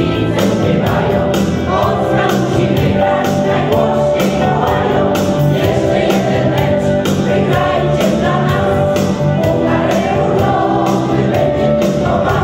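Choir of men and women singing a Polish song, with keyboard and electric guitar accompaniment and a steady beat.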